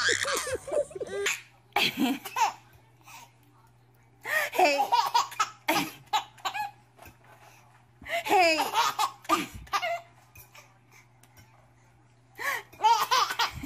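A baby laughing hard in several separate bursts of belly laughter, with short quiet pauses between them.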